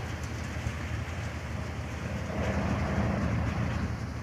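New Harjendar Agro Rocket model paddy thresher running, a steady low mechanical drone as it blows out chaff.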